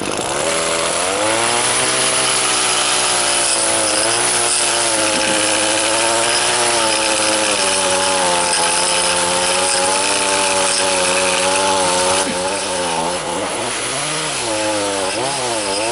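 Small two-stroke engine of an Echo PE-225 stick edger revving up about a second in and running at high throttle, its pitch wavering slightly; near the end it dips and rises again several times as the throttle is eased and opened.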